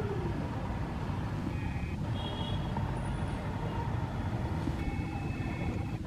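Steady low rumble of distant road traffic, with a few brief high steady tones about a second and a half in and again near the end.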